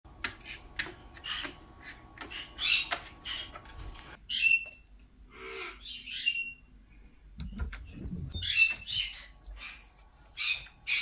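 Pet parrots giving harsh, repeated squawks, with a few short whistled notes mixed in and a quieter gap in the middle.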